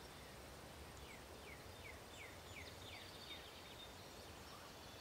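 Near silence with faint outdoor ambience. About a second in comes a quiet run of about eight short, high chirps, each falling in pitch, lasting to around three and a half seconds.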